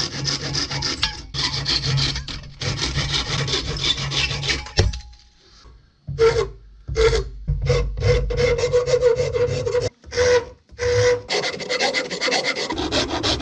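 A handsaw cutting through a wooden axe handle held in a vise, in steady strokes. About six seconds in it gives way to a bastard rasp shaving the handle's wood in back-and-forth strokes, each with a ringing scrape.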